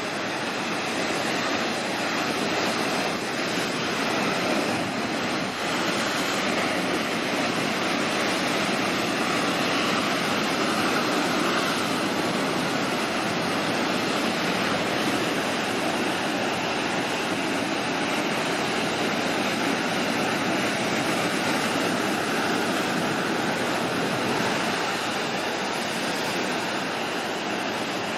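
Storm surf: a rough sea's waves churning and breaking on the shore in a steady, dense wash of noise that swells slightly a few seconds in and eases a little near the end.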